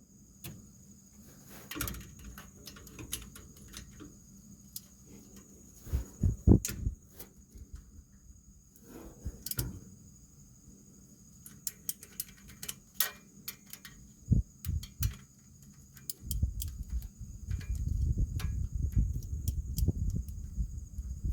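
Scattered metal clicks and knocks of a socket wrench being fitted and turned on loose exhaust manifold bolts, with a denser clatter of handling in the last few seconds. Crickets trill steadily underneath.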